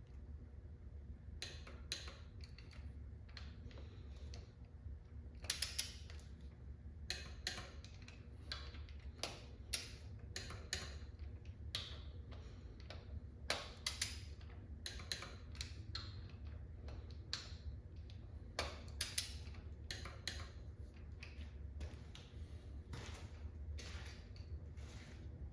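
Irregular clicks and light metallic taps, a few a second with pauses, from hand tools working on engine parts, over a steady low hum.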